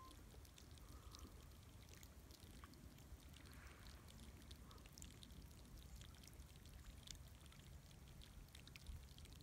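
Near silence: a faint low rumble and hiss with a few tiny scattered ticks.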